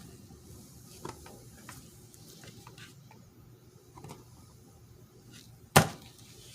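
Scattered small clicks and scrapes of a pick and screwdriver working at the plastic retaining pin of a manual shifter assembly, with one sharp, loud click near the end.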